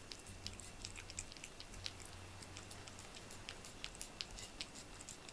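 A cat eating soft food off a plate, with faint, irregular small licking and chewing clicks.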